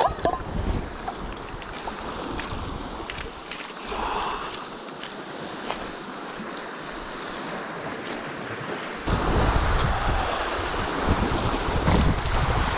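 Small waves washing onto a pebble lakeshore, with gusty wind buffeting the microphone. About nine seconds in the wind and surf suddenly get louder.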